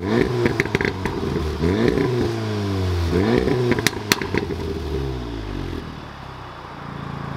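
A VW Golf R's 2.0-litre turbocharged four-cylinder is revved through its exhaust in three quick blips, rising and falling in pitch, with a couple of sharp pops on the overrun after the third. It then settles back to a steady idle.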